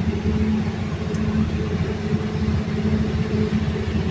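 Perkins 1300 series diesel engine running at a steady speed, with an even low drone.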